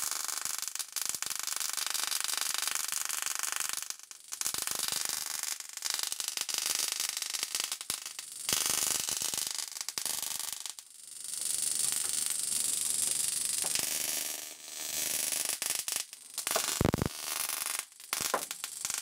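High-voltage sparks from an automotive ignition coil pack arcing to a foil-wrapped CD-spindle capacitor: a harsh crackle with a faint steady buzz under it. It stops and restarts several times as the arc breaks off.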